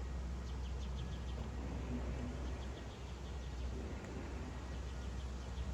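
Faint, quick high-pitched chirps of small birds over a steady low rumble.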